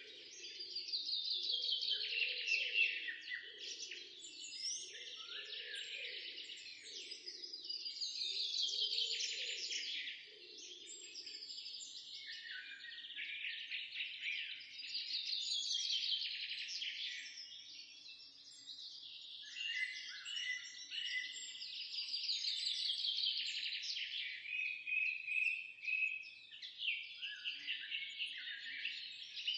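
Songbirds singing: a run of twittering song phrases, each a few seconds long and sliding down in pitch, repeating one after another.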